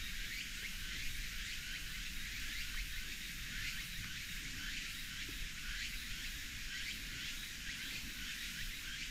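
A steady outdoor chorus of insects, high-pitched and full of short repeated chirps, over a low rumble.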